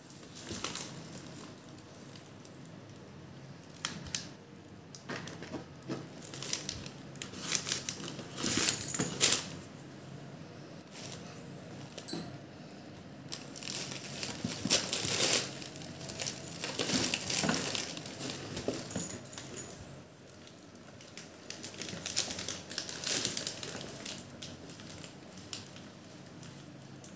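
A kitten scrambling in a woven fabric tote bag and pawing a plastic bag, making irregular bursts of rustling and crinkling, with one sharp tap near the middle.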